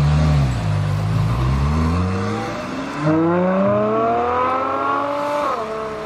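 Ferrari sports car's engine accelerating. A low rumble at first, then its pitch climbs steadily for a couple of seconds and drops sharply near the end.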